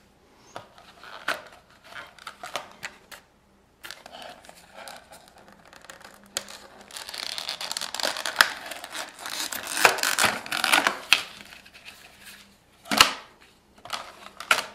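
Handling noise: crinkling and rustling with many sharp clicks and taps, busiest in the middle stretch, with a brief pause about three and a half seconds in.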